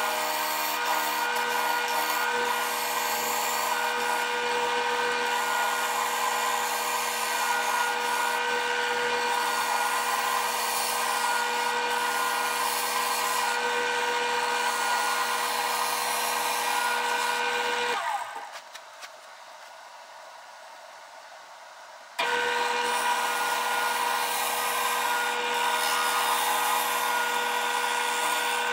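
Wood lathe running with a steady motor whine while a gouge cuts a spinning cherry plate blank, the cutting adding a hissing, scraping noise. The sound drops away about two-thirds of the way in and comes back suddenly some four seconds later.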